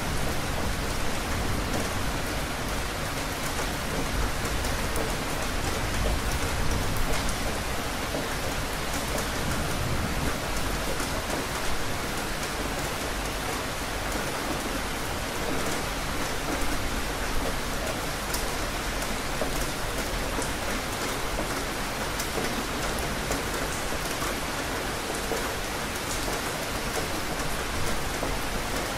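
Steady rain falling, an even hiss with scattered sharp ticks of single drops striking.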